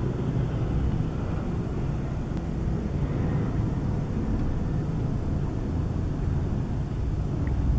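Steady low outdoor rumble of distant background noise, with no clear bird calls.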